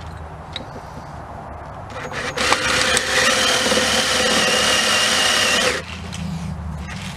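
Cordless drill bit cutting into an aluminium piston, with a steady whine. The cut starts about two seconds in, runs for roughly three seconds and stops abruptly. Metal is being drilled out to lighten the piston for balancing.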